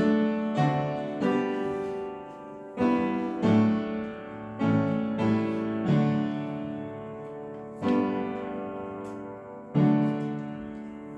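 Instrumental music with no singing: slow chords struck one after another and left to ring and fade, roughly one a second at first and further apart later.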